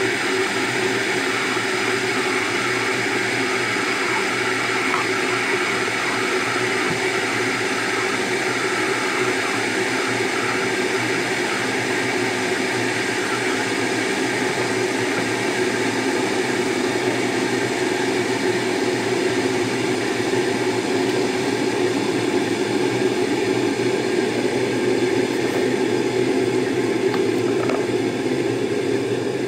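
An electric kitchen appliance running with a steady, even whir and hum that holds without a break.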